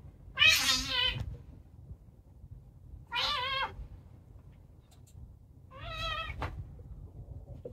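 Two cats wrestling, one crying out three times: a loud, harsh, wavering yowl about half a second in, then two shorter cries about three and six seconds in.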